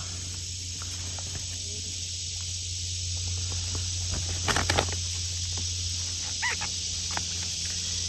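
Steady high-pitched hum of an insect chorus in woodland, with a brief rustle of handling about halfway through.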